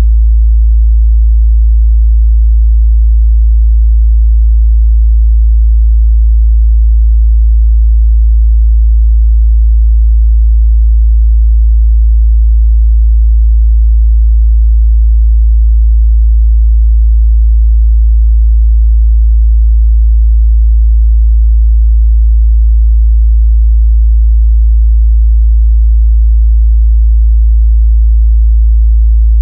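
Steady 55 Hz sine-wave test tone, a pure low bass hum held at constant loudness with no change in pitch.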